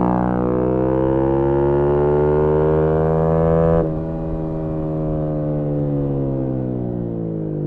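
Yamaha MT-125's single-cylinder 125cc engine through an aftermarket GPR exhaust, pulling hard with the revs climbing. About four seconds in the throttle shuts and the sound drops suddenly, then the revs fall steadily as the bike slows on the overrun.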